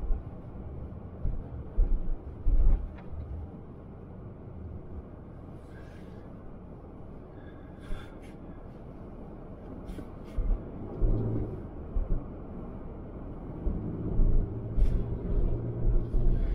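Car driving slowly over packed snow, heard from inside the cabin: a steady low rumble of engine and tyres, with a few brief knocks and clicks. The engine note rises briefly about eleven seconds in and again near the end.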